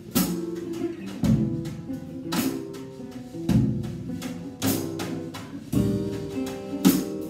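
Acoustic guitar strummed in a steady rhythm, a strong chord stroke about once a second with lighter strokes in between.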